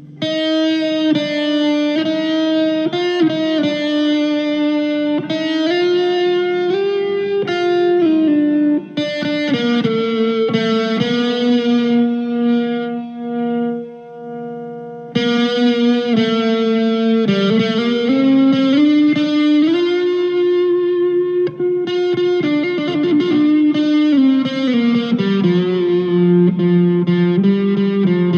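PRS 245 electric guitar played through a Blackstar ID:Core V2 amp, sustained chords and notes changing every second or two. About halfway through, the notes are left to ring and fade, then a new phrase comes in strongly.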